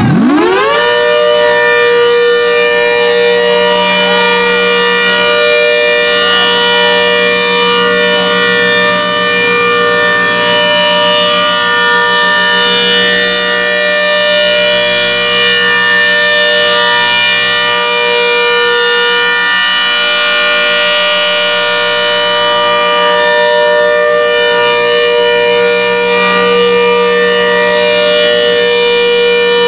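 ACA Hurricane mechanical siren finishing its wind-up in the first second, then holding a loud, steady, chord-like tone at full speed: the steady alert signal.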